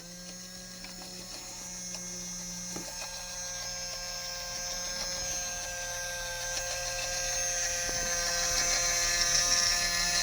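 Toy washing machine's small electric motor running, a steady whine that grows gradually louder.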